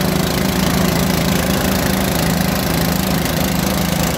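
Engine of a small water-well drilling rig running steadily at constant speed, with a fast, even pulse.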